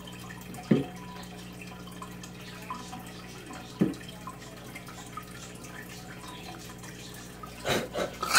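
Aquarium filter trickling and dripping water into the tank over a steady low hum from its pump, with a few short knocks, the loudest near the end.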